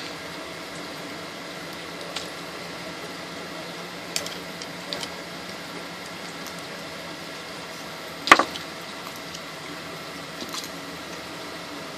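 A few sharp clicks and knocks of hard plastic parts being handled and taken apart, the loudest about eight seconds in, over a steady background hum.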